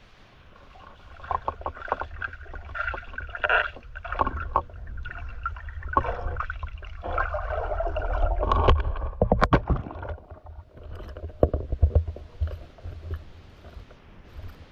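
Underwater water noise picked up by a submerged action camera: a low rumble with swelling gurgling and sloshing, broken by many sharp clicks and knocks as the diver moves, busiest past the middle and dying down near the end.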